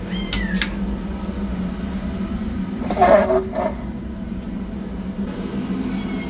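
Kittens meowing: a short high meow just after the start and a louder, lower one about three seconds in, over a steady low hum.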